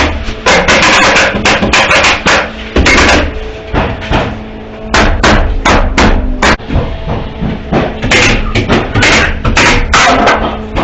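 Nails being driven into framing lumber: a long series of sharp, irregular impacts on the wood, with steady faint tones underneath.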